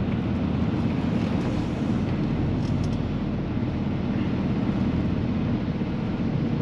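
Semi truck's diesel engine running steadily at low revs as the rig creeps slowly toward a loading dock.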